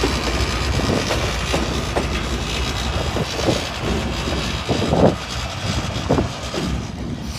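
Freight train moving along the yard tracks: a steady noise of running gear with scattered short knocks and clanks. The deepest rumble drops away about halfway through.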